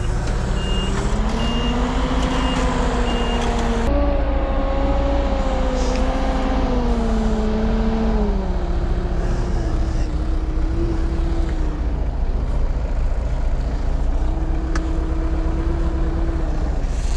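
Heavy diesel construction machine running, its engine pitch rising and falling as it works. A reversing alarm beeps about twice a second for the first three seconds.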